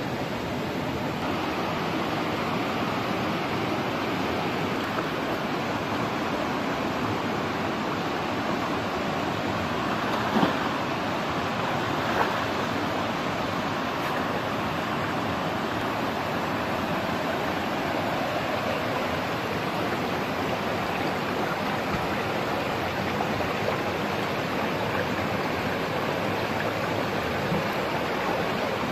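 Shallow, fast-flowing stream running steadily, with hands splashing and rubbing in the water and two sharper splashes near the middle.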